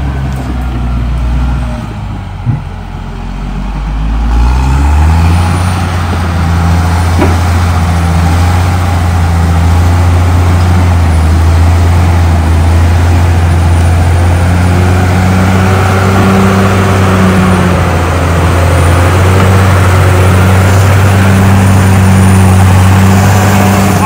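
Caterpillar D6R XL bulldozer's diesel engine working as the blade pushes dirt and roots. It dips about two seconds in, with one sharp knock, then revs up around four to five seconds in and holds a steady working pitch.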